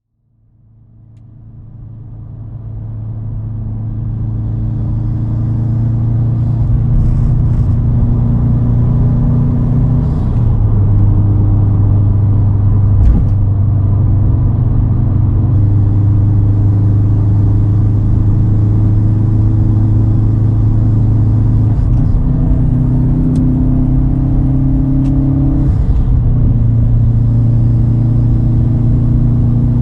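2010 Subaru WRX STI's turbocharged flat-four with a titanium single straight-pipe exhaust, cruising with a steady low drone that fades in over the first few seconds. The pitch of the drone steps down and up a few times, and there is one brief thump about 13 seconds in.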